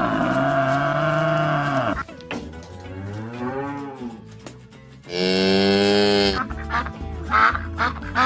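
Cattle mooing: three long calls, a deep loud one about two seconds long, a quieter wavering one, then a higher loud one. Near the end a mallard duck quacks several times.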